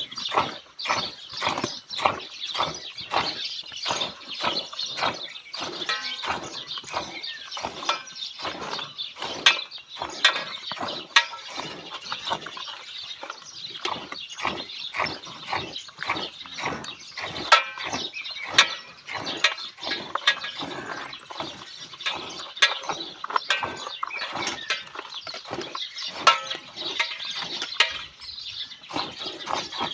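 Hand milking a cow: streams of milk squirting from the teats into a steel bucket and splashing into the frothy milk already in it, a rhythmic hiss about three times a second as the teats are squeezed in turn.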